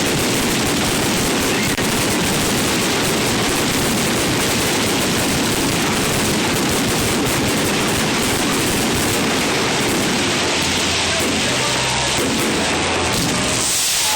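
Fireworks display: a dense, continuous barrage of bangs and crackling with no let-up.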